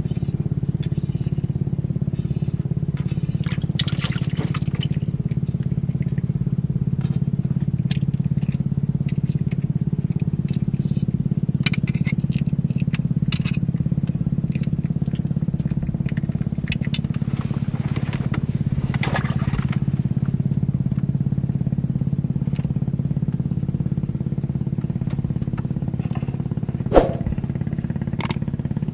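A small engine running steadily at an even speed, with scattered light clicks and knocks over it and one sharp knock near the end.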